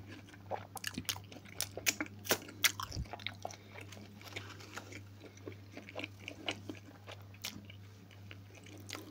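A person chewing and biting food with wet mouth clicks, busiest in the first three seconds, then slower chewing.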